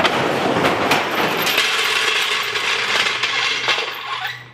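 Harbor Freight jack being let down under the car's weight: a steady hiss with a few light metallic clicks, which fades out near the end as the car settles.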